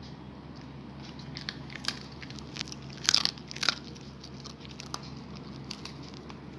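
A puppy crunching and chewing a hard snack: scattered sharp crunches, the loudest pair of bites about three seconds in, then a few lighter ones.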